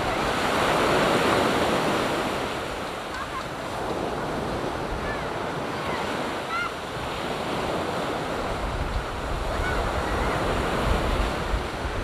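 Ocean surf washing up a sandy beach and drawing back, swelling with a wave in the first couple of seconds, with wind buffeting the microphone.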